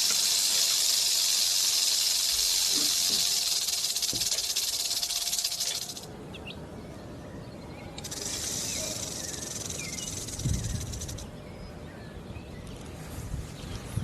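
Rattlesnake rattling its tail: a steady, dry, high buzz that stops about six seconds in, then starts again about two seconds later more weakly for a few seconds. Low rumbling thuds come about ten seconds in and again at the end.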